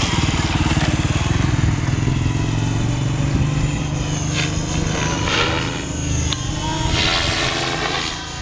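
Align T-REX 550E electric radio-controlled helicopter in flight: a steady buzz from its spinning main rotor, with a steady higher whine above it.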